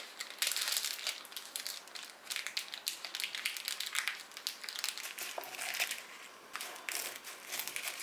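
Baking paper crinkling and rustling under gloved hands as it is rolled up around strips of bacon, in several bouts with short pauses.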